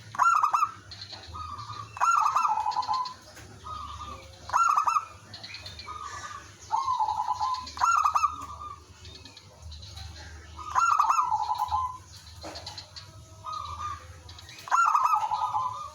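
Zebra doves cooing: a loud phrase of quick, staccato coos comes every two to four seconds, with fainter coos from other doves answering in between.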